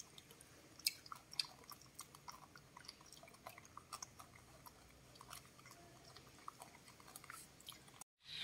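Faint crunching and small clicks of baby macaques chewing roasted corn kernels fed to them from a hand.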